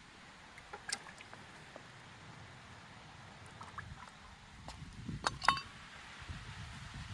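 A few light metal clicks of pliers on a cast brass ingot, then about five seconds in a sharp metallic clank with a brief ring as the brass ingot lands on asphalt.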